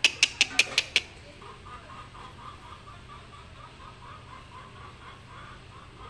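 Six sharp clicks in quick succession in the first second, then a soft, rapid clucking from a chicken, about five pulses a second, that runs for about four seconds.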